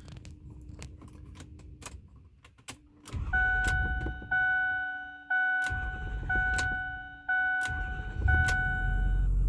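Keys jangle and click, then the truck's warning chime dings about once a second while the 6.4 L Power Stroke V8 diesel cranks in stretches. Near the end the engine catches and settles into a steady low idle, part of an intermittent hard-start/no-start fault.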